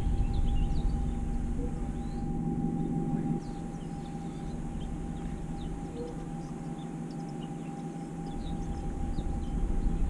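Widebeam canal boat's diesel engine running, a steady low rumble with a constant tone, easing off about a third of the way in and building again near the end. Birds chirp over it.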